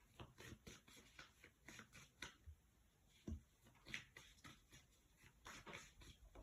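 Faint shuffling and handling of a deck of oracle cards: a run of soft, irregular clicks and rustles.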